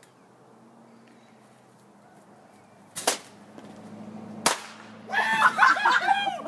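A Black Cat bottle rocket fires with a short burst about three seconds in, and about a second and a half later its charge goes off with a single sharp bang. Excited shouting follows.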